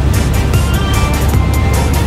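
Background music over a steady low rumble, the sound of a helicopter in flight.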